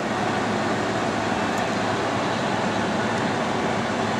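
Steady, even mechanical hum and hiss of running machinery, with no distinct clicks or knocks.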